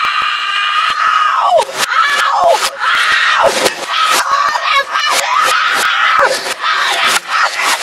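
A boy's angry, high-pitched screaming played backwards, in several long yells that each drop sharply in pitch at the end, over a clatter of sharp knocks from a computer keyboard being hit.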